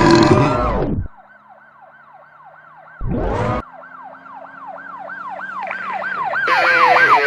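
A loud blaring sound, the tail of an exaggerated burp, dies away about a second in. A police siren in fast yelp mode follows, its pitch swooping up and down about three times a second and growing louder as it approaches. A short loud burst comes about three seconds in.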